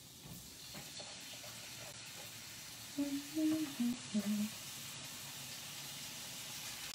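Ground turkey sizzling as it goes into a pan of hot olive oil, a steady hiss that builds just after the start. A voice briefly murmurs about three seconds in.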